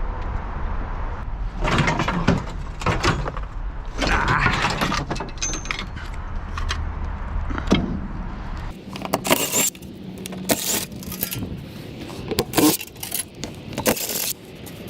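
Scrap metal being handled: repeated clanking and rattling of loose metal pieces. A low steady hum runs underneath and cuts off suddenly about nine seconds in.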